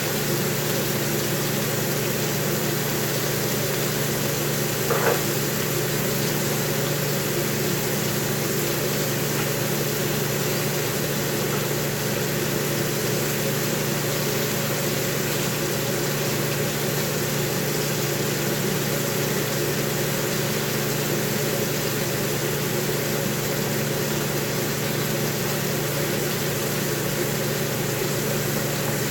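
Kitchen exhaust fan running with a steady hum and rushing noise. A brief short sound about five seconds in.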